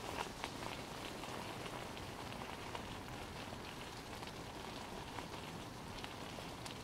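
Bicycle rolling along: a steady hiss of tyre and air noise with a scatter of small, irregular crackles and ticks.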